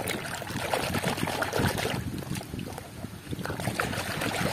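A hand swishing and scrubbing a toy truck in a basin of muddy water: irregular sloshing and splashing.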